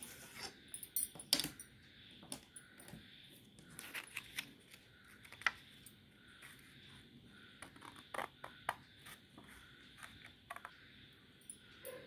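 Scissors snipping through a sheet of craft paper: an irregular run of short, crisp cuts with paper rustling between them.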